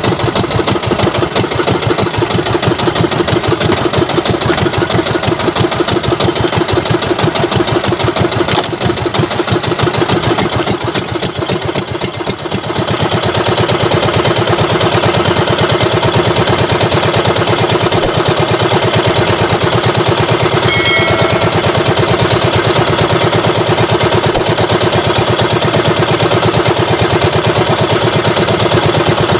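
Small outrigger banca's engine running steadily, with a fast even firing beat. About thirteen seconds in, the engine sound gets a little louder and steadier.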